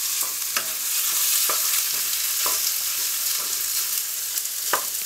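Minced pork and sliced onion sizzling in a nonstick pan while a wooden spatula stirs them, scraping and tapping against the pan at irregular intervals, with the loudest knock near the end.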